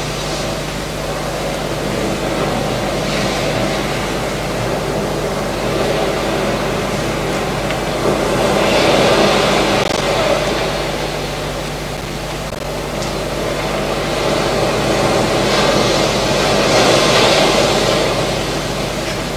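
Recorded sea surf accompanying a projected film of breaking waves: the wash swells and falls off, loudest about nine seconds in and again late on. A steady low hum runs underneath.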